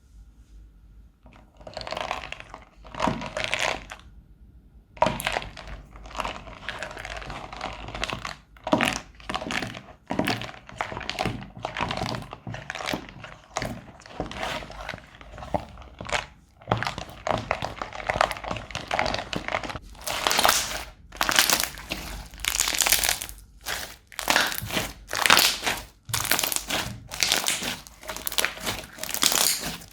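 Crunchy slime being squeezed and pressed by hand, crackling and crinkling in quick repeated bursts that grow louder and come faster near the end.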